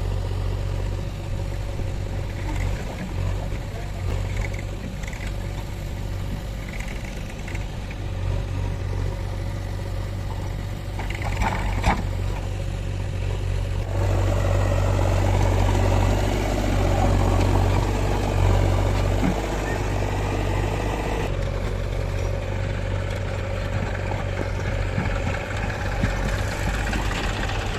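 Diesel engines of a backhoe loader and tractors running with a steady low drone. About halfway through the engine note grows louder and fuller for some seconds, then settles back.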